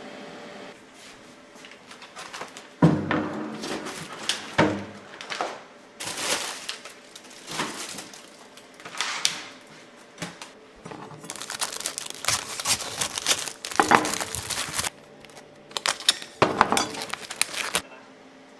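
Kitchen handling sounds: food packages and containers set down on the counter with a series of sharp knocks, mixed with plastic packaging crinkling and rustling.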